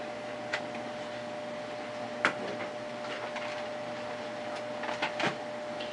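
A few sharp clicks of power switches being turned off, the loudest about two seconds in, with a pair near the end. Under them runs a steady hum of equipment with a faint steady tone.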